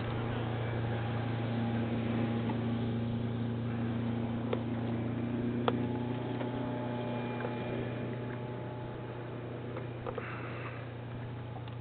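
A steady low mechanical hum, with a fainter higher tone that swells and fades in the middle and a couple of sharp clicks about halfway through.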